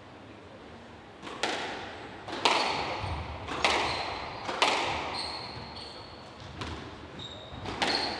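Squash rally: about six sharp smacks of the ball off racket and walls, roughly one a second with a short gap after the middle, each ringing in the enclosed court. Short shoe squeaks on the wooden floor come in between the later shots.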